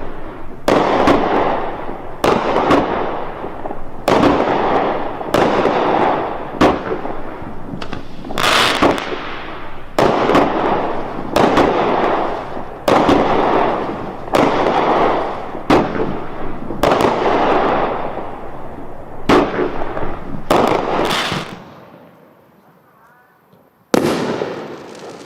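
Fireworks going off in a rapid string, about one loud bang a second, each trailing off over about a second. The string stops about 21 seconds in, and one last bang comes near the end.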